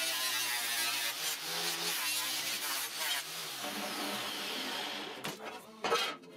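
Electric angle grinder grinding the edge of a steel plate: a steady motor whine with a grinding hiss that stops about three seconds in, after which the motor winds down. Near the end come a few knocks and clunks as the steel plate is moved, the loudest just before the end.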